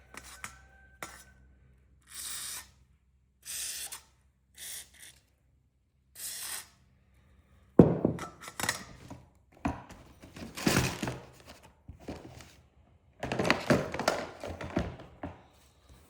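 Aerosol can of penetrating oil sprayed onto a pocketknife in four short bursts. This is followed by a sharp knock and several seconds of clunking and clattering as the can and knife are handled.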